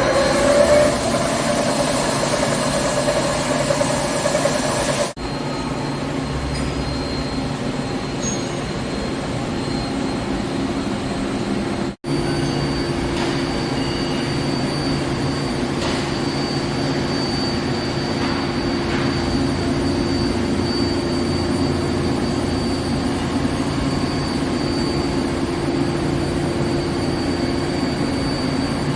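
Heavy CNC machine tool running: a steady mechanical hum with a thin high whine held over it. It breaks off briefly twice, about 5 and 12 seconds in.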